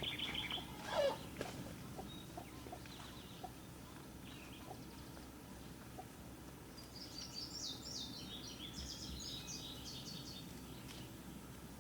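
Birds calling outdoors: a loud falling call about a second in, then a run of quick, high repeated notes from about seven to ten seconds in, over a faint steady background.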